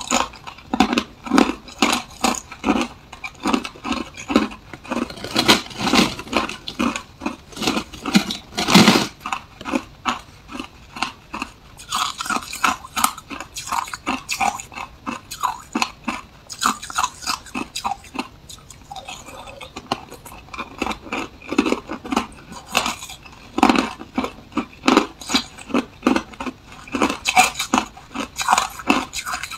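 Close-miked crunching and chewing of hard ice balls: a steady run of sharp crunches a few times a second, one louder bite about nine seconds in. Now and then a metal spoon clinks as it scoops ice balls from a plastic tub.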